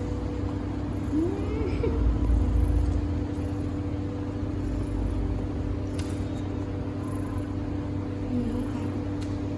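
A steady mechanical hum with a low rumble, and a kitten mewing briefly about a second in and once more near the end.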